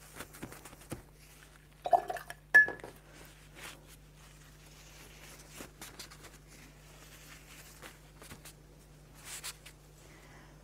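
Crumpled paper towel dabbing and rustling against damp watercolour paper, lifting wet paint to soften the background; faint, scattered soft rustles. Two sharp clinks about two seconds in are the loudest sounds, over a faint steady hum.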